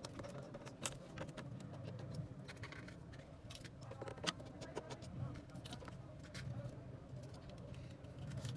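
Scattered light, sharp clicks and small metallic taps, typical of hand tools handling a phone during a repair, over a steady low background hum.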